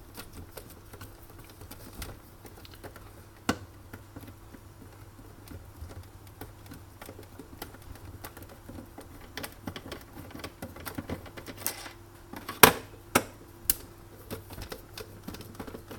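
Scattered light clicks and taps of tools and plastic and metal parts being handled while an espresso machine is taken apart, with a sharper click about three and a half seconds in and a few more near the end.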